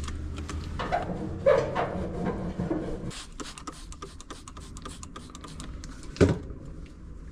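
Clicks, scrapes and rubbing from parts of an opened electric dryer being handled and cleaned, with one sharp knock about six seconds in.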